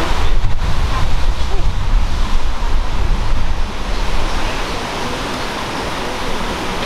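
Wind buffeting the microphone over a steady hiss from a 10.25-inch gauge miniature steam locomotive approaching slowly with steam escaping near its cylinders. The wind gusts are strongest in the first few seconds, then ease.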